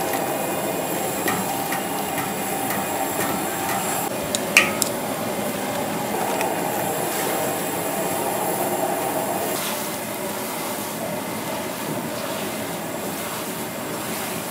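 Noodles stir-frying in a large steel wok: a steady sizzle, with chopsticks and a horseshoe crab shell scraping and tossing the noodles against the metal. Light tapping in the first few seconds and one sharp metallic clink about four and a half seconds in.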